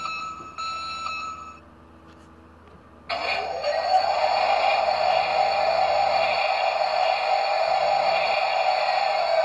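Electronic sound chip of a toy cement mixer truck: two steady beeps of its parking signal, then, after a short pause about three seconds in, a recorded engine starting up with a rising whine and then running steadily.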